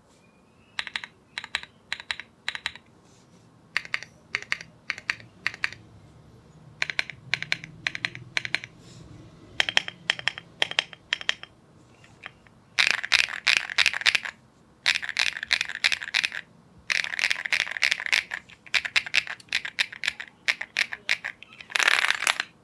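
Mechanical keyboard with KTT Macaron Green linear switches in a Rainy75 kit being typed on. Keys are pressed in short, spaced groups at first, then in fast, dense typing runs from about halfway, ending in a rapid flurry of keystrokes.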